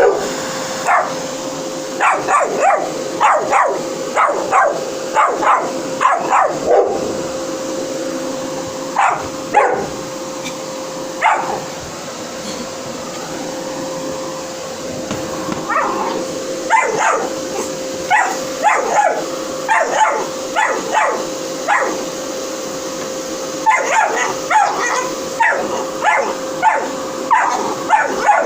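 Dog barking and yelping repeatedly in bursts of quick barks, with a lull partway through, over the steady hum of a running vacuum cleaner.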